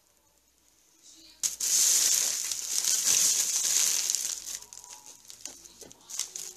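Plastic crinkling and rustling as it is rummaged through. It starts suddenly about one and a half seconds in, stays loud for about three seconds, then trails off into softer rustles and small clicks.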